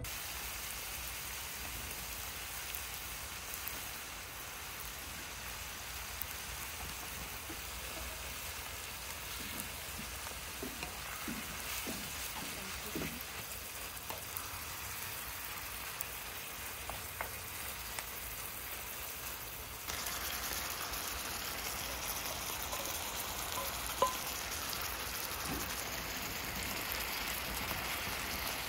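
Bean-sprout bulgogi sizzling on a camping griddle: a steady frying hiss that gets a little louder about 20 seconds in, with one sharp click a few seconds later.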